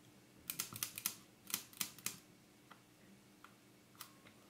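A run of small, sharp metal clicks, several in quick succession about half a second in and a few more spaced out after, as the bayonet mount of a Nikkor-P Auto 105 mm f/2.5 lens is fitted and worked into place by hand.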